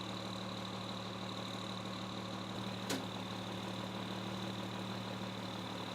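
An engine idling steadily, with a single sharp click about three seconds in.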